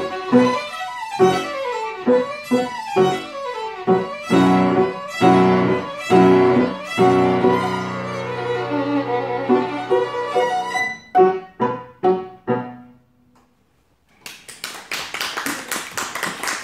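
Violin and grand piano playing the end of a piece: a long held chord, then several short separate closing chords. After a brief silence, applause starts about two-thirds of the way through.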